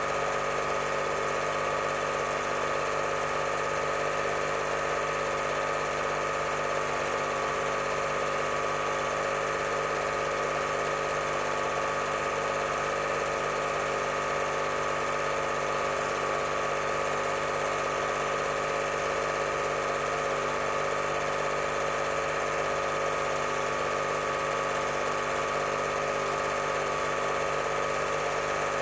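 8mm cine film projector running steadily: a constant mechanical hum with fixed tones and a faint, evenly repeating low pulse.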